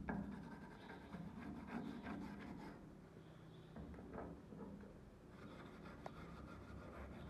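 Scraping and light tapping on a rusty steel knife blade lying on concrete, with the blade also rubbed across the concrete: rust being worked off the steel.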